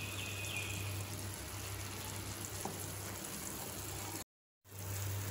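Pan of greens soup boiling in an open kadai, a steady bubbling hiss. It cuts out for a moment near the end.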